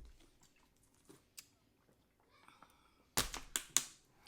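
Eating noises at the table: a quiet pause, then a quick run of sharp crunches and mouth clicks about three seconds in.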